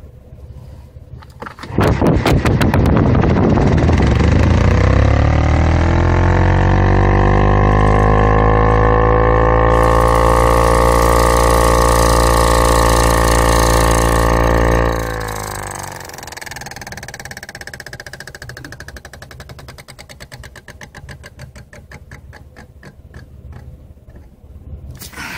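Car ventilation blower fan spinning up like a jet turbine: it cuts in suddenly about two seconds in with a whine that rises in pitch, holds loud and steady, then drops off sharply about fifteen seconds in to a quieter hum.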